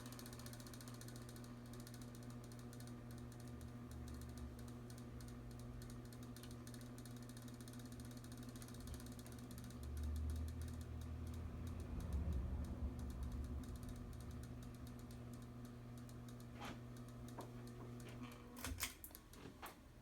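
1993 Kmart ceiling fan's motor running with a steady electrical hum and a fast, light ticking. There are a couple of low thuds in the middle. Near the end the hum cuts off, with a few sharp clicks.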